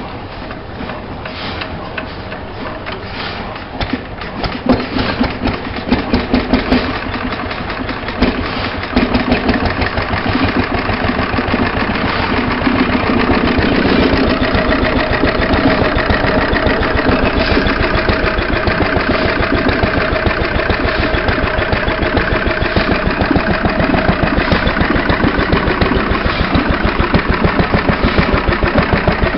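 Vintage Lister D single-cylinder stationary engine with Ricardo patent head, cold-started by hand: a few irregular firing beats about four seconds in, then it catches and settles into steady running with rapid, even beats.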